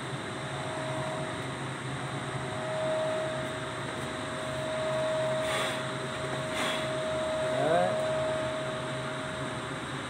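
Steady machine hum with a held mid-pitched tone, of the kind an air conditioner or fan makes. The tone ends about eight seconds in with a short rising glide.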